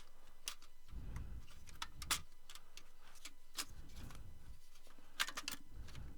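Scattered light clicks and taps of parts being handled on a small form factor desktop PC, at irregular moments, with a few soft low thumps between them.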